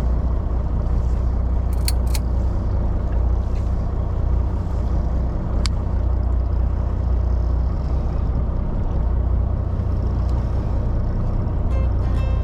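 Fishing boat's engine running with a steady low rumble, with a few faint clicks about 2 and 6 seconds in.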